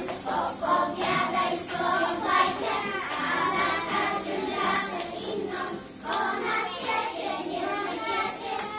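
A group of young children singing a song together in chorus, with a brief pause in the singing about six seconds in.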